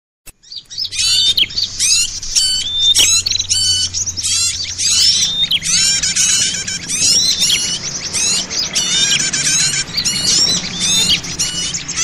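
Many kinds of small songbirds chirping and twittering at once in a dense, noisy chorus of rapid high calls, starting about a second in. It is a lure recording (suara pikat) meant to draw wild birds in.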